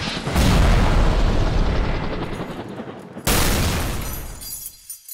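Two deep explosion booms from a war-film soundtrack, about three seconds apart, the first about half a second in, each dying away over a second or two.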